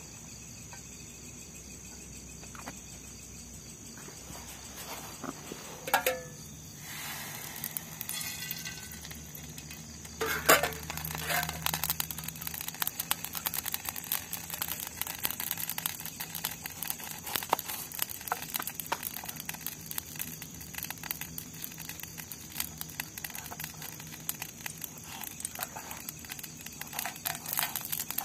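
Cooking oil heating in a camping pan on a portable cartridge gas stove, crackling and sizzling irregularly from about ten seconds in. A steady high chirping of crickets runs underneath, and there are a few knocks in the first seconds.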